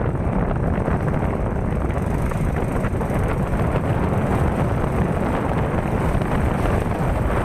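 Steady, loud wind rumble buffeting the microphone.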